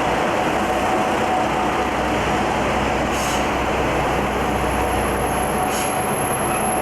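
Train running with a steady rumble and a faint steady tone, with two short high clicks, about three and six seconds in.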